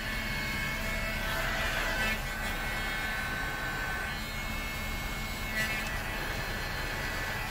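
Heat gun running steadily, its fan motor humming and blowing a constant rush of air as it warms the plastic of an e-brake handle.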